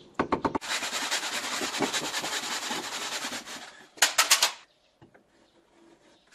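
Hand saw cutting through a soft white building block: a dense rasp of quick strokes for about three seconds, then a few sharper strokes around four seconds in, after which it falls almost quiet.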